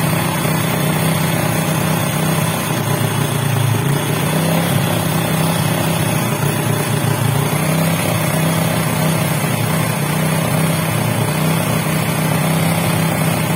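Honda XRM125 single-cylinder four-stroke engine idling steadily at a raised idle while the carburetor's air screw is turned. The running does not change, which the mechanic takes as a sign of a clogged passage inside the carburetor.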